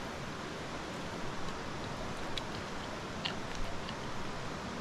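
Rocky mountain trout stream flowing through riffles: a steady rush of water, with a few faint short high ticks in the middle.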